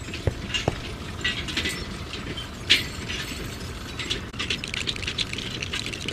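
Plastic LEGO bricks clicking and rattling, a quick, irregular run of small clicks with a sharper clack about halfway through.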